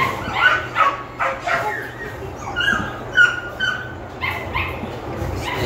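Pomeranian puppy yipping and whimpering in quick short high calls, several a second, as it plays and tugs at a toy.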